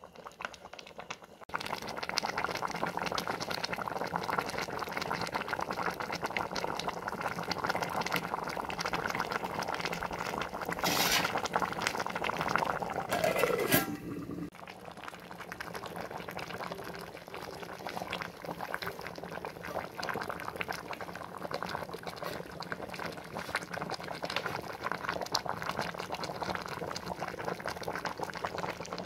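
Salt fish soup boiling in an aluminium pot, a steady bubbling. Near the middle there is a louder metallic scrape and clatter, and after it the bubbling is a little quieter.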